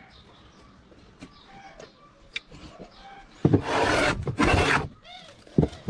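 Two strokes of a hand tool rubbed hard across wood, about three and a half seconds in, each lasting under a second; a single sharp knock follows near the end, with faint light taps before the strokes.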